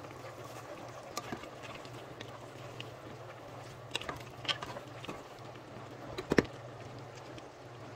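A cooking utensil stirring shredded cabbage into a pot of soup broth, with a few short knocks and scrapes against the pot. The loudest comes just past six seconds in, over a steady low hum.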